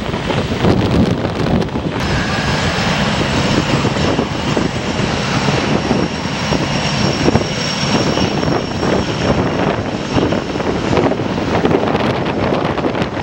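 Learjet business jet's engines running at speed as it rolls along the runway: a steady jet roar with a thin high whine that sets in about two seconds in and fades near the end.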